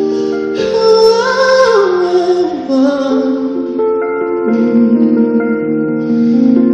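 A ballad sung live to keyboard accompaniment: held chords under a solo voice that slides down through a long falling run about a second in.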